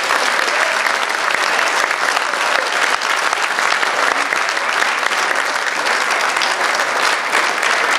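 Audience applauding: a dense, even sound of many hands clapping, holding steady without a break.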